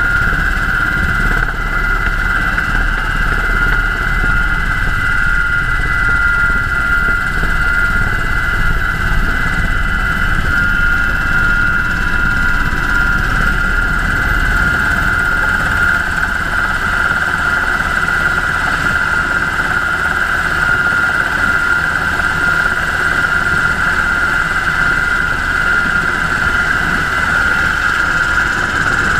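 UH-60 Black Hawk helicopter in flight: a steady high whine over a dense low rumble from its twin turboshaft engines, transmission and rotors, holding level throughout.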